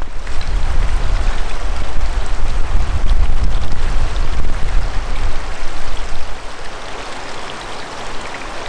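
Strong wind buffeting the microphone: a heavy gusting rumble with rushing hiss, strongest in the first half and easing off toward the end.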